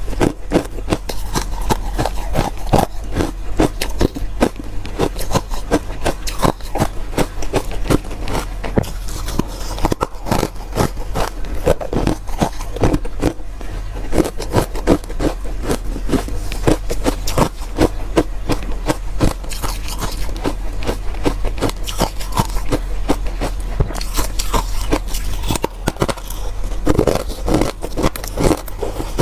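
Close-up crunching of ice and freezer frost being bitten and chewed: a dense, irregular run of crisp crunches and scrapes, with a steady low hum underneath.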